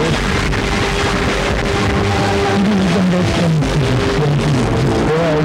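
Loud rock music with guitar, low notes moving in a riff over a dense, distorted wash.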